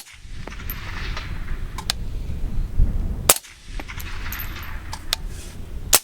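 Rifle shots fired through a Dead Air Nomad suppressor: three sharp reports about three seconds apart, one at the very start, one in the middle and one at the very end. Fainter, sharper cracks fall in between.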